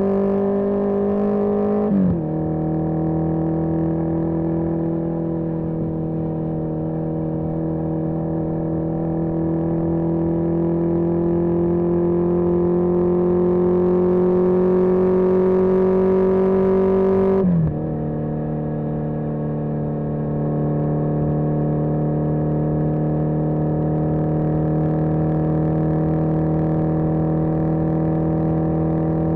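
1981 Yamaha XJ650 Maxim's air-cooled inline-four engine under way on the road, its pitch climbing slowly as the bike gathers speed. The pitch drops sharply twice, about two seconds in and again past the middle, as it shifts up a gear, then settles to a steady cruise.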